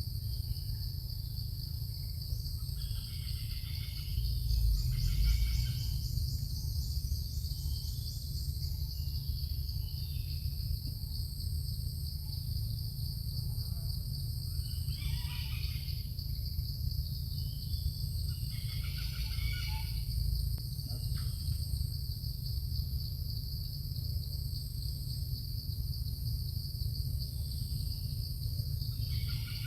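Steady high-pitched insect drone over a low rumble, with short calls now and then.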